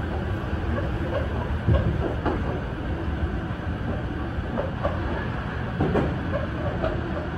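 Meitetsu local electric train running on the rails, heard from inside the front cab: a steady low rumble with occasional short clicks and knocks from the wheels.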